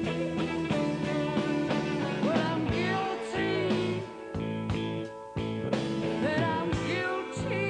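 A blues-rock band playing, with a lead electric guitar bending notes over bass and drums.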